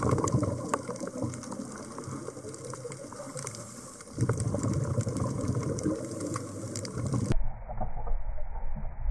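Underwater sound through a camera housing: a steady crackle of fine clicks over rushing water noise, which swells about four seconds in. About seven seconds in it cuts abruptly to a duller, muffled low rumble.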